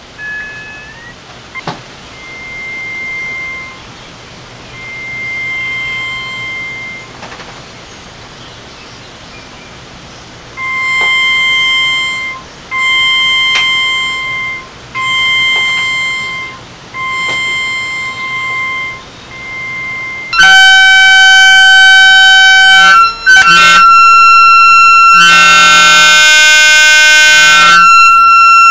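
Simple unmodulated electronic tones from a Deerhorn circuit driving a multi-layer piezo speaker taped to a paulownia wood board. Short steady notes repeat about once a second, getting louder partway through. From about two-thirds in comes a loud, sustained, dense tone that shifts pitch a couple of times, with the loosely taped speaker buzzing against the wood.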